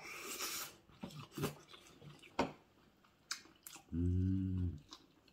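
Eating at a table: scattered light clinks of metal spoons and chopsticks against ceramic bowls, with chewing. A short low 'mmm' hum comes about four seconds in.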